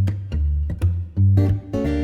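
Background music: plucked acoustic guitar over a steady bass line.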